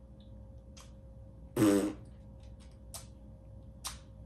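A paper MRE match struck against its matchbook's striker: about three short, sharp scratches without catching. About one and a half seconds in, a short vocal noise from the man, like a grunt or throat clearing, is the loudest sound.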